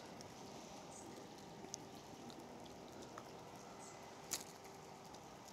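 Faint, steady patter of light rain on a slow river, with a few small ticks and one sharp snap about four seconds in as a bait catapult is let go to loose-feed maggots.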